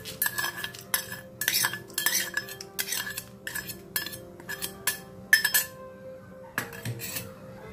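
Steel spoon scraping and tapping the tempering out of a small stainless-steel bowl: a quick series of metallic clinks and scrapes, about two a second, each with a short ringing note. They stop about five and a half seconds in, with one more tap near the end.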